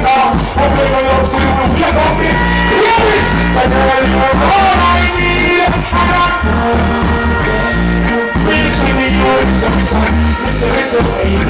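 Music with a singing voice over a heavy, repeating bass line and steady beat, in a Jamaican dancehall/reggae style.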